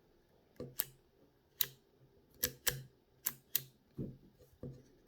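Small sharp plastic clicks from a taken-apart 1995 Honda Del Sol light switch being worked through its detent positions, about eight clicks at uneven spacing.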